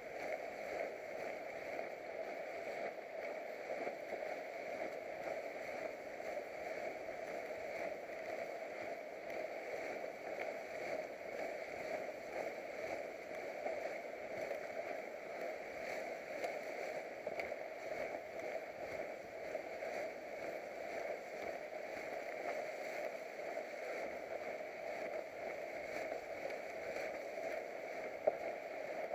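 Paramotor engine running steadily in flight, a continuous even drone mixed with wind rush.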